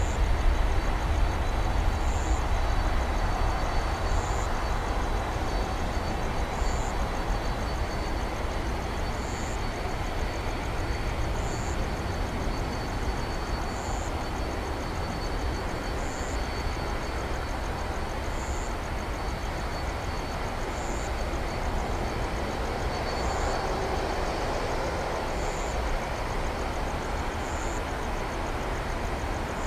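Jet noise from an Airbus A330-200F freighter's two Rolls-Royce Trent 700 turbofans at takeoff power: a steady deep rumble and hiss that eases slowly over the first several seconds as the aircraft lifts off and climbs away.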